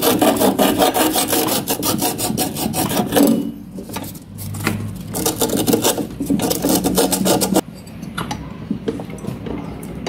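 Sandpaper rubbing a refrigeration line tube in quick back-and-forth strokes, sanding it down so it will slide into its fitting for brazing. The scraping pauses briefly about three and a half seconds in, picks up again, and turns fainter after about seven and a half seconds.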